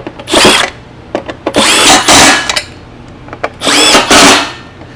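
Cordless driver spinning in three short runs, each whining up and back down, as it drives home the bolts that fasten a backpack blower's engine to its fan housing.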